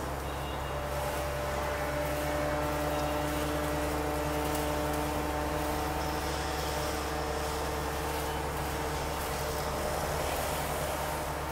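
High-power borewell air compressor running steadily, blowing air down the bore to flush out mud: a constant low drone with a few steady tones above it.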